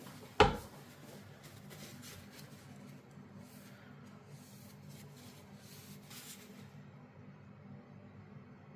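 Sheffield straight razor being honed on a whetstone: a run of faint scraping strokes that stop near the end, with one sharp knock about half a second in.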